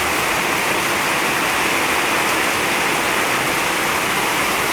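Heavy rain pouring down as a steady, even rush of water.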